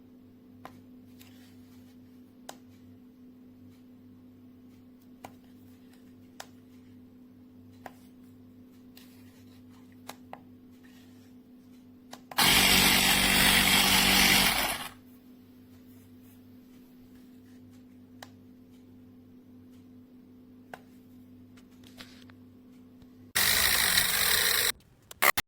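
Battery-powered portable mini air compressor running in two short bursts, about two and a half seconds near the middle and a second and a half near the end, over a faint steady hum with scattered small clicks.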